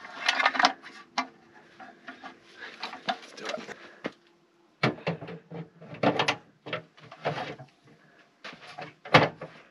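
Metal fold-out camper steps clattering and clanking as they are collapsed, then knocking and scraping as they are pushed into a storage slot under the truck body.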